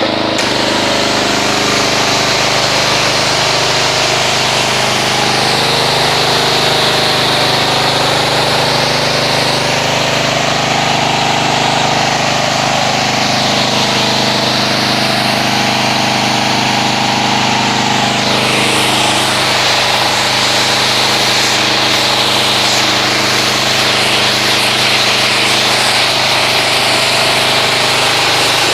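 Pressure washer running steadily, its motor humming under the hiss of the water spray as the foam is rinsed off the vehicle.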